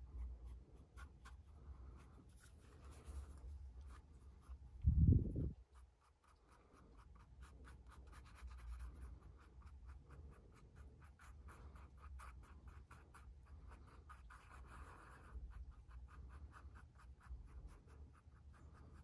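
Wooden toothpick stirring and scraping epoxy mixed with glitter on a pad of sticky notes: a faint, fast run of small scratches and ticks. One dull low thump about five seconds in.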